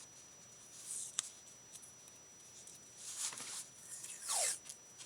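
Soft handling noises of craft supplies, such as washi tape rolls and paper being picked up, moved and rustled. There is a small click about a second in and a few brief rustling swishes later on.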